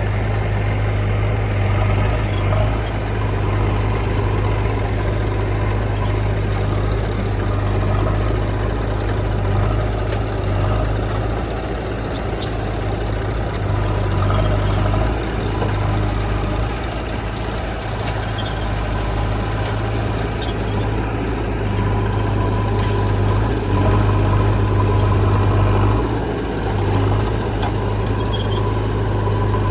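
Diesel engine of a JCB 3DX backhoe loader running steadily with a deep hum that swells and eases a little at times.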